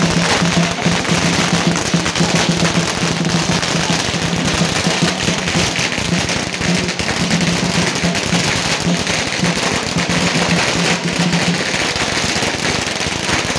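A long string of Tết firecrackers popping in a rapid, continuous crackle that does not let up, with a low steady tone coming and going underneath.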